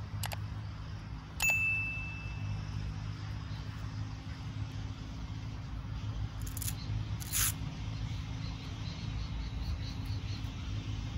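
Open-air ambience: a steady low rumble, with a few brief clicks and a short high tone about a second and a half in.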